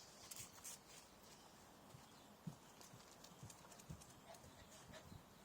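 Near silence, with a few faint, irregular light taps.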